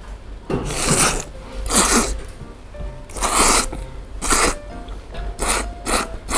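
A person slurping thick, chewy Yoshida udon noodles from a bowl: a run of loud, noisy slurps, the first few long and the later ones shorter and closer together. Light background music plays underneath.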